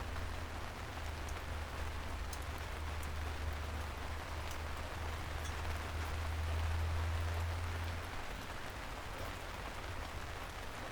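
Steady soft rain falling on city streets, an even hiss with scattered sharp drop ticks. A low rumble runs underneath, swells and then stops about eight seconds in.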